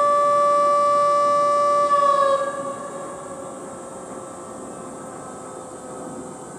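A long, loud horn blast with one steady pitch, already sounding at the start. About two seconds in it sags slightly in pitch and stops, and its echo fades across the harbour water.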